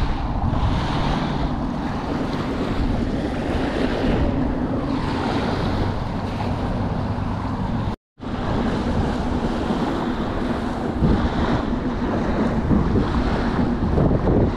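Wind buffeting the microphone over small waves washing onto the beach, steady throughout, with the sound cutting out completely for a moment about halfway through.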